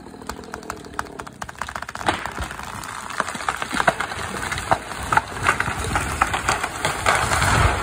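A felled tree going over: the wood cracks and splinters in sharp pops that come faster and louder, then the tree crashes through branches and lands with a heavy low thump near the end. A chainsaw idles faintly under the first second.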